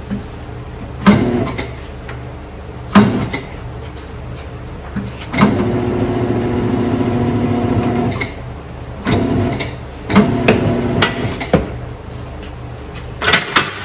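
A motorcycle tire being worked onto its rim with tire irons and a tire-changing machine: a series of sharp knocks and snaps, with a machine motor running steadily for about three seconds midway.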